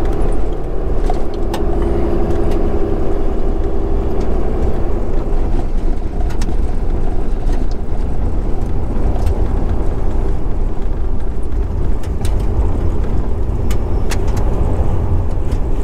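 Truck driving down a road, heard from inside the cab: a steady engine and road rumble, with a faint drone that fades out about five seconds in and a few small clicks and rattles.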